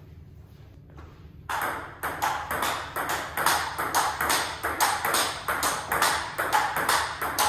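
Table tennis rally: the ball clicks off bats faced with Hurricane 3 Neo rubber and bounces on the table in a fast, even run of about four clicks a second. It starts about a second and a half in, after a quiet opening.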